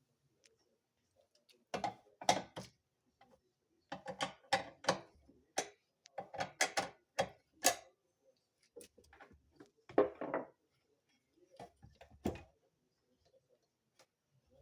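Washing machine giving irregular clusters of sharp mechanical clicks and knocks. They start about two seconds in and die away about two seconds before the end, with no steady motor hum underneath.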